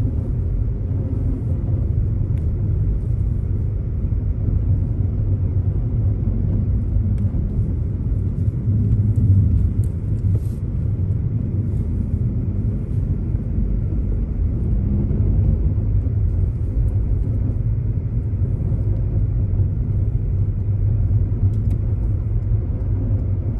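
A car driving, a steady low rumble of road and engine noise with no clear change.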